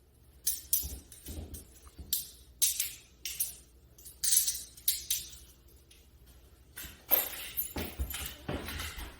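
Metal handcuffs and their chain clinking and jingling in short bursts as they are handled on a person's wrists, followed about seven seconds in by a longer stretch of rattling and handling noise.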